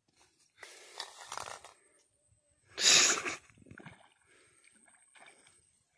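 A hooked fish thrashing and splashing at the surface of shallow water as it is played on a rod, with a loud splash about three seconds in and smaller sloshing around it.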